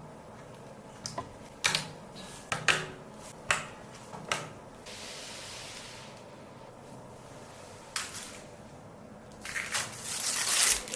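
Sharp separate clicks and snaps of computer hardware being handled and fitted during assembly, about seven in the first half, then a brief steady hiss midway and another click a little later.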